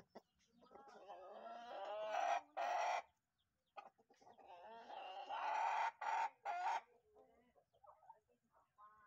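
Rooster crowing twice in a row, each crow building up in loudness and ending in a short separate final note.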